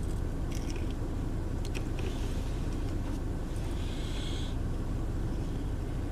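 Steady low hum inside a car with the heater running, with a few faint clicks and a brief rustle about four seconds in from food packaging being handled.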